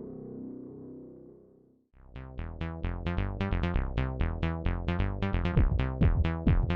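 Background music: a held synthesizer chord fades away, then about two seconds in a quick, even run of short keyboard notes starts over a bass line.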